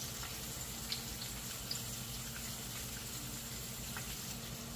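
Food frying in oil in pans on the stove: a steady sizzle with a few faint pops, over a low steady hum.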